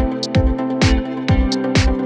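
Background electronic dance music with a steady kick-drum beat, a little over two beats a second, under sustained synth chords.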